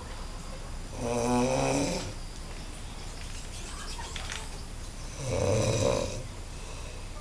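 A sleeping man snoring very loudly: two long snores about four seconds apart, each lasting about a second.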